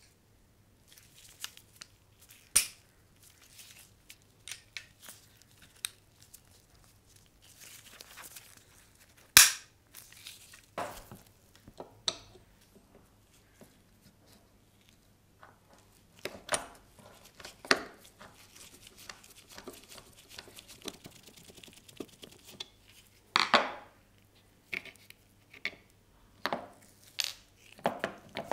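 Antique single-shot pistol being handled and taken apart on a wooden table: scattered clicks and light knocks of metal and wooden parts, with one sharp click about a third of the way in. Near the end a run of louder knocks and clatters as the wooden grip panel is lifted off and set down.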